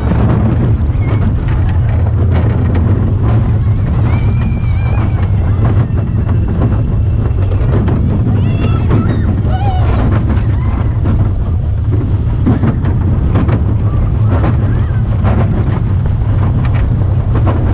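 Wind buffeting the microphone over the rumble of a small steel junior roller coaster train running along its track, with frequent rattles and clacks from the wheels and cars.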